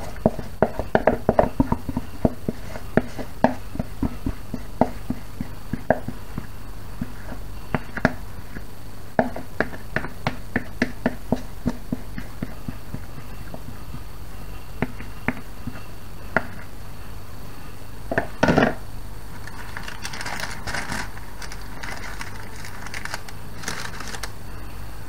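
Handling of a foil baking tray lined with baking paper and filled with cake batter: scattered light clicks and knocks, a louder knock about 18 seconds in, then a short stretch of crinkling and scraping.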